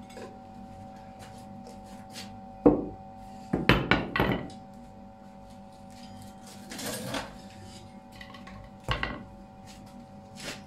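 Blacksmith's hammer striking metal on a steel anvil: one blow, then a quick run of about four blows just under a second later, and two more single knocks near the end. A steady hum runs underneath.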